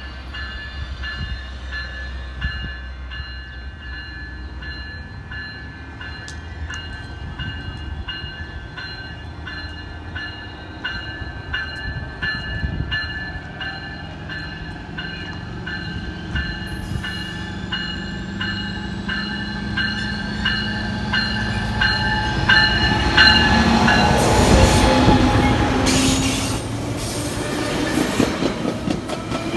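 Coaster commuter train led by an SC-44 Charger diesel locomotive approaching and passing close by a station platform, its sound growing steadily louder until the locomotive and bilevel coaches go past about 24 seconds in. A bell rings with an even, repeating beat through the approach and fades as the train passes.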